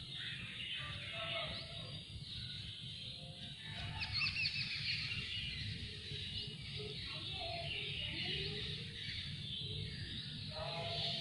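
Background music with many short, high bird-like chirps over a steady low rumble; the chirps are thickest about four seconds in.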